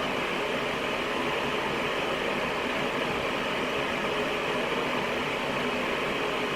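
Steady hiss of background noise, even and unchanging, with no howls or other distinct sounds.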